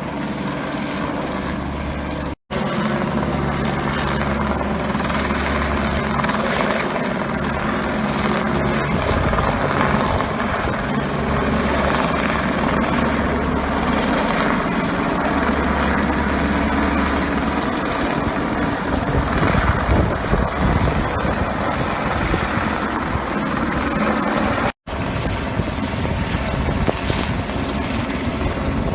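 Helicopter flying nearby with a steady rotor beat and engine drone. The sound cuts out for an instant twice: about two seconds in and near the end.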